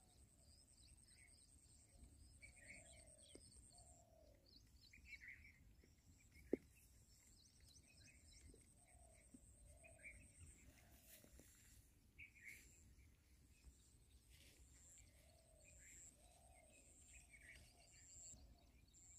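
Faint birdsong: a repeated low arched call and higher short chirps, over a thin, high, steady insect buzz that comes and goes. One sharp click about six and a half seconds in.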